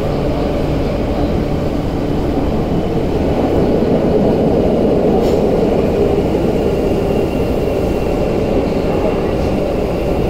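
Tokyu 8500 series subway train running through a tunnel, heard from inside the car: a steady, loud rumble of wheels on rail and traction motors. A faint higher whine joins about four seconds in.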